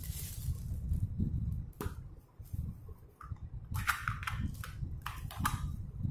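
Small plastic toys clicking and tapping as a child handles them: a sharp click about two seconds in, then a quick cluster of clicks around four seconds and a few more shortly after, over a low rumble of the phone being handled.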